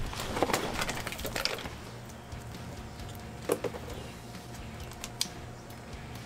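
Plastic water bottle crinkling in the hand, then a single knock about three and a half seconds in as it is dropped onto the cardboard pizza box, followed by a couple of light clicks.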